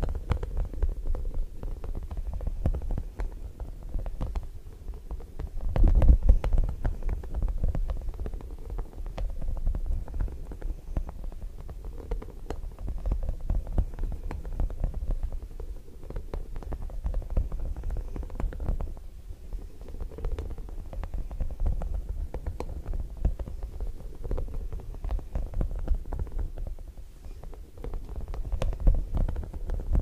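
Soft spiky rubber puffer ball squeezed and rubbed right against a microphone. It gives a continuous low rumble with dense, irregular squishy crackling, loudest about six seconds in and again near the end.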